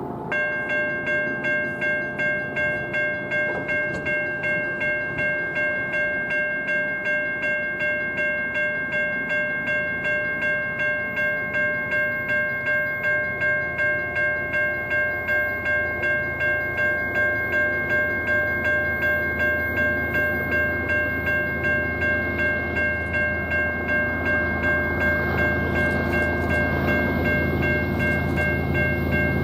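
Railroad grade-crossing warning bell that starts abruptly and rings steadily about twice a second, the signal that a train is approaching. The low rumble of the oncoming train builds near the end.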